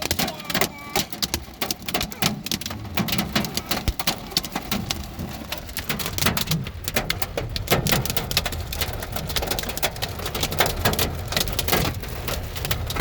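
Heavy rain mixed with hail pelting down: a dense, irregular patter of sharp impacts.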